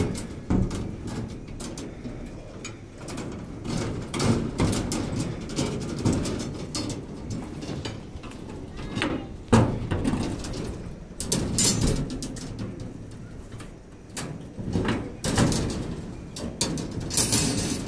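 Irregular metallic knocks and clinks of steel reinforcing bars being handled and tied on slab shuttering, some strikes sharper and louder than others.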